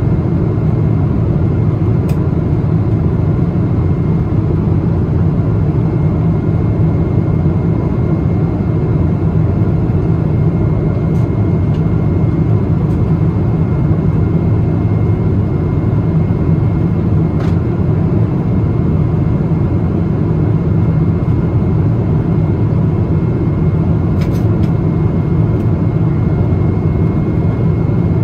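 Steady cabin roar of a Boeing 777-200 in cruise: engine and airflow noise heard from inside the passenger cabin, heaviest in the low range, with a faint steady hum above it. A few light clicks stand out, the clearest about two seconds in, near the middle and about three-quarters of the way through.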